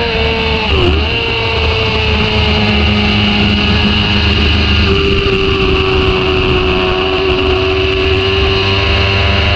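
Sport motorcycle engine running at high revs in fifth gear through a long fast bend. Its note dips briefly about a second in as the throttle is eased, then holds steady at a slightly lower pitch over a constant rush of noise.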